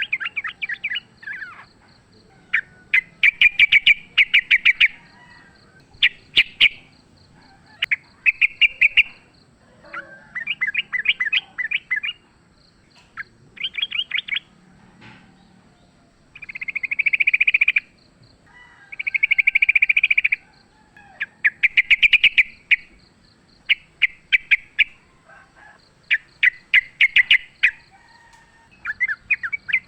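Yellow-vented bulbuls singing in rapid chattering bursts, each about a second long, repeated every two seconds or so: the agitated fighting song of the species.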